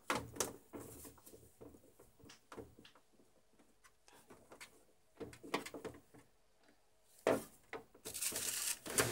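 Hands handling a CRT television's plastic back cover: scattered light clicks and knocks of plastic, with a longer rustle near the end.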